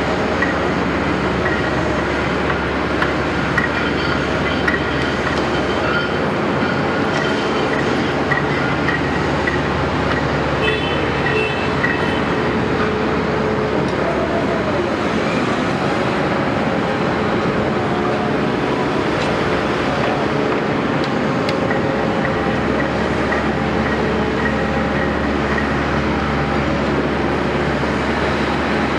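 Caterpillar 329E hydraulic excavator working: its diesel engine and hydraulics run steadily under load, with a few short metallic clinks.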